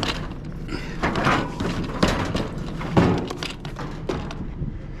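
Hard knocks and thumps of junk being shoved and wedged into a loaded scrap trailer, about five separate knocks roughly a second apart.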